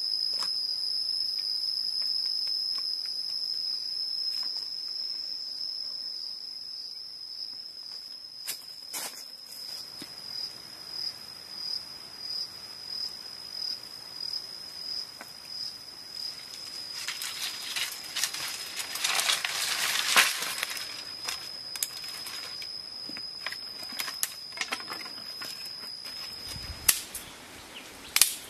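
A steady, high-pitched insect drone, one unbroken tone that cuts off suddenly near the end. Scattered clicks and a brief rush of noise come partway through.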